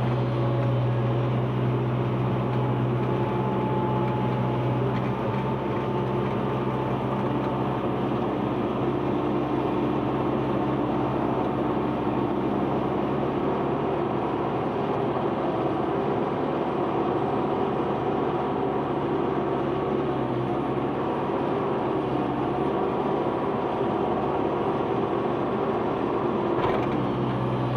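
Heavy earthmoving machine's engine running at a steady speed, a deep, even drone. There is a short knock near the end.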